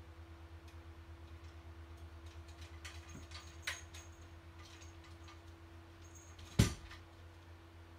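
A cat scrambling on a small wooden folding drying rack while spinning after its tail: a few scattered clicks and taps of paws and claws on the wood, then one loud thump a little after six seconds in as it lurches off the edge. A steady low hum with a fast, even pulse runs underneath.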